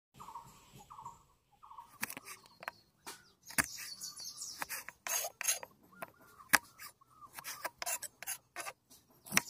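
A knife cutting through red onions and knocking on a wooden chopping board: an irregular run of sharp cuts with a crisp crunch, starting about two seconds in. A bird chirps repeatedly in the background, most plainly in the first two seconds.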